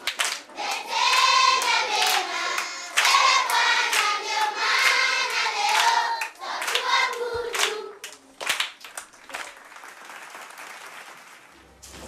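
A group of schoolchildren singing together in chorus, with hand claps. The singing stops about eight seconds in, leaving a few scattered claps and low background noise.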